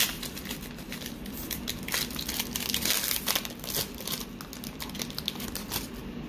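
Foil wrapper of a Pokémon booster pack crinkling and tearing as it is opened by hand, the crackle thickest midway and thinning out near the end.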